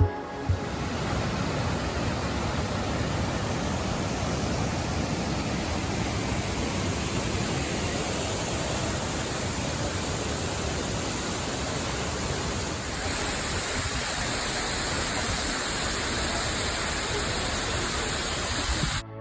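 Irachilpaara waterfall, its falling water making a steady rush of noise. About thirteen seconds in the rush turns brighter and hissier, and it cuts off abruptly just before the end.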